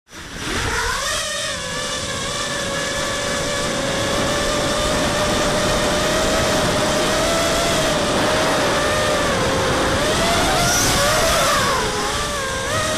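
FPV racing quadcopter's electric motors and propellers whining, heard through its onboard camera over a loud rushing of wind. The whine starts from silence, rises quickly about a second in, holds fairly steady, then wavers up and down in pitch near the end as the throttle changes.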